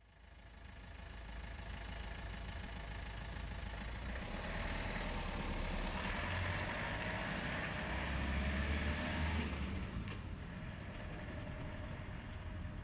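A motor vehicle driving past: engine rumble and road noise that build up, are loudest about eight to nine seconds in, and then fade.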